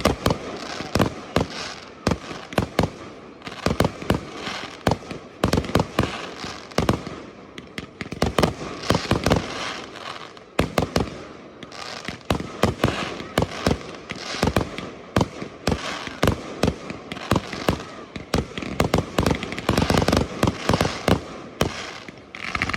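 Fireworks display: a dense, continuous run of sharp bangs from bursting shells, several a second at times, over a steady hiss.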